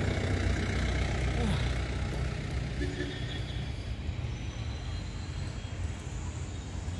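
Steady outdoor roadside noise, a low rumble under an even hiss, with a short falling tone about a second and a half in.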